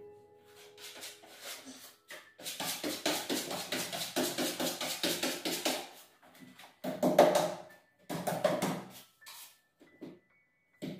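Steel putty knife scraping joint compound onto gypsum board in quick repeated strokes, in short runs with pauses between them, the strongest strokes coming in the second half.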